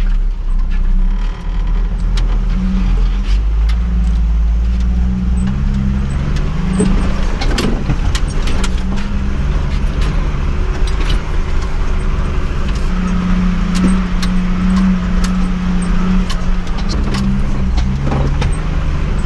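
1989 Jeep Wrangler YJ engine pulling under load as the lifted Jeep crawls up a steep rocky trail, its note shifting with the throttle. Scattered knocks and rattles come from the tyres on rock and loose things shaking in the cab.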